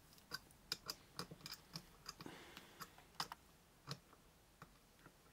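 Faint, irregular small metal clicks and ticks as a keyring screwdriver with keys hanging on its ring is worked by hand, turning a large Phillips screw into wood.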